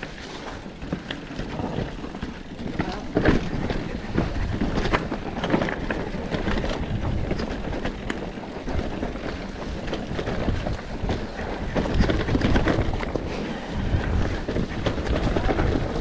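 An enduro bike riding fast over a rough dirt trail: wind on the microphone and tyre noise over ground, broken by frequent knocks and rattles as the bike hits rocks and roots.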